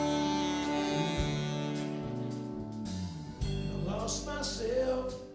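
Live band playing an instrumental break between verses: electric guitars over a steady drum beat with cymbals, and a wavering lead line near the end.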